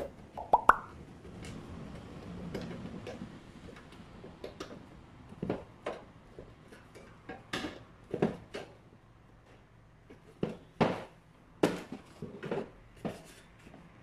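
Screwdriver, screws and metal parts clicking and clinking against a black sheet-metal enclosure as components are screwed in. Irregular light taps and knocks, with a few sharper ones in the second half.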